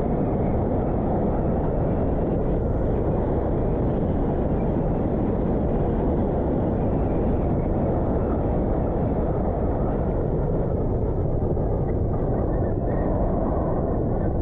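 Steady rush of wind buffeting the microphone of a camera mounted on a bicycle riding at speed.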